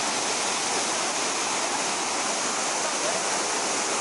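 Waterfall: white water cascading over mossy rocks in a steady, loud rush.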